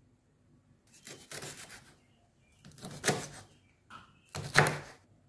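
Kitchen knife cutting through fresh green beans onto a wooden cutting board: a few separate cuts and taps, the sharpest about three seconds and four and a half seconds in.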